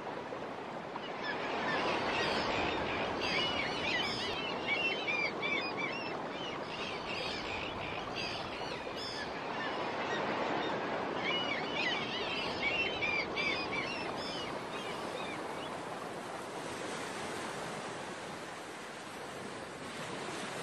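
Shallow stream rushing and splashing over a rocky riffle, a steady sound of running water. Birds chirp in quick runs of calls over it, in one spell a second or so in and another in the middle.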